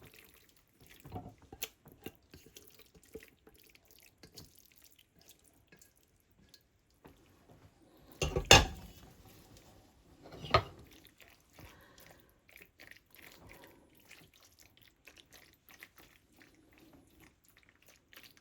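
Pasta bake being scraped and tipped out of a pan into an oven dish: faint wet, sticky scraping and small clicks of a utensil, with two sharp knocks of metal on the dish about eight and a half and ten and a half seconds in.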